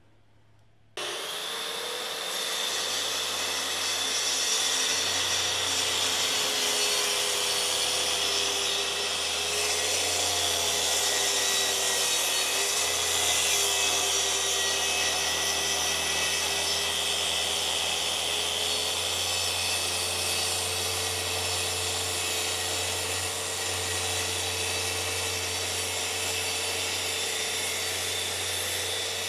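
Makita plunge track saw cutting walnut along its guide rail at a 10-degree bevel. The motor starts about a second in, and its steady whine and blade noise hold through the long cut.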